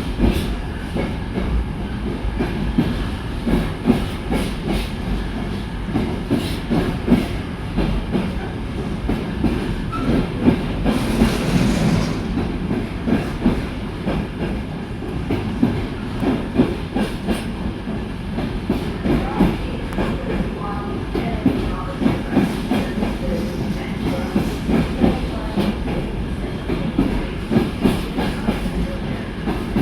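Train running through a station, its wheels clicking over rail joints above a steady rumble, with a brief hiss about eleven seconds in.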